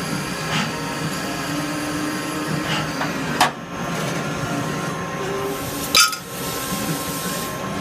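Hardinge T-42 CNC lathe running steadily, with a hum and several steady tones, and a few sharp metallic clunks, the two loudest about three and a half and six seconds in.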